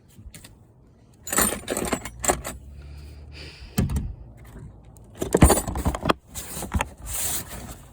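Small metal hand tools clinking and clattering in several bursts as they are gathered up and put away, the loudest clatter about five seconds in.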